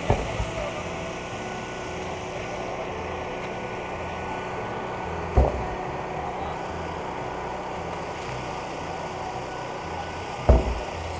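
A heavy tractor tire being flipped end over end, landing flat with a heavy thud three times, about five seconds apart, over steady background noise.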